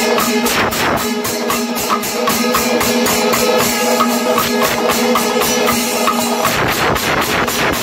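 Panchavadyam ensemble playing: rapid timila and maddalam drum strokes with clashing ilathalam cymbals. A steady ringing tone under the drumming drops out about six and a half seconds in, leaving a denser wash of strokes.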